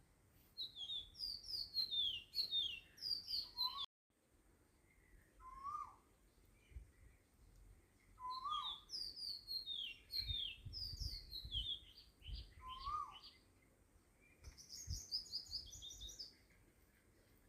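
Birds chirping: quick runs of short, high, falling chirps, with a few lower calls in between.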